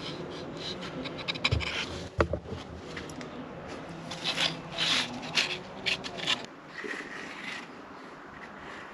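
Short scraping and rubbing strokes from hand work, coming in quick succession and busiest around the middle.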